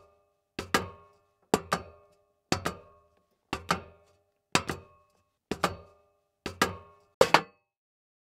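Pairs of sharp percussive strikes, each with a short pitched ring, about one pair a second, stopping about a second before the end.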